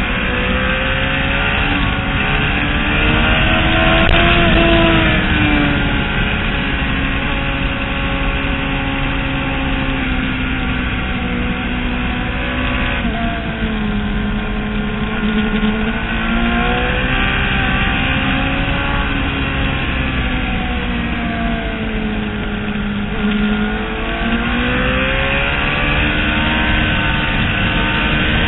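Onboard sound of a motorcycle engine at speed around a race track, its pitch rising under acceleration and falling as it slows, several times over, over a steady rush of wind noise.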